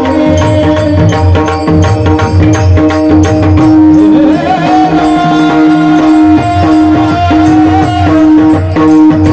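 Devotional music: a sung alaap line over steady held drone notes and a regular rhythm of tabla-like drumming, the voice gliding up into a long high note about four seconds in.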